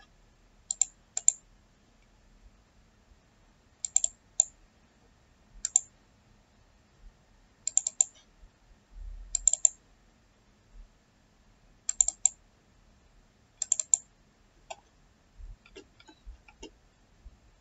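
Computer mouse clicking, many of the clicks in quick pairs like double-clicks, every second or two.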